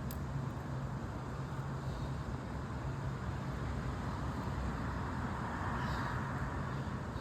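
Steady outdoor background noise at night, a constant rush with a low hum under it, swelling slightly about five to six seconds in. No distinct thunderclap.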